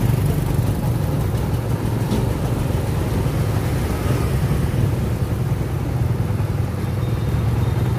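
Engines running steadily in light street traffic: a công nông three-wheeled farm truck, typically powered by a single-cylinder diesel, pulling a small excavator, heard from a motorcycle close behind. A continuous low drone.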